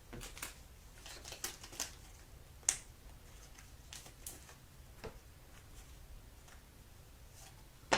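Trading cards being handled and flipped through by hand: irregular soft clicks and quick swishes of card stock sliding against card, the sharpest a little under three seconds in.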